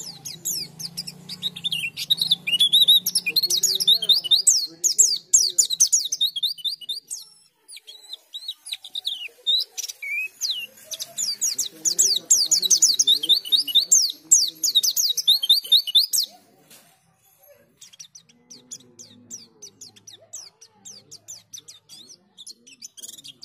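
White-eye (pleci) singing: a fast, loud warble of rapid high, down-slurred notes in two long runs, then softer, sparser twittering over the last several seconds.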